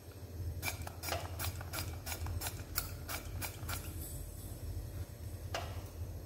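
Pump oil sprayer being pressed rapidly over a frying pan: about ten quick spritzes in three seconds, then one more click a couple of seconds later, over a low steady hum.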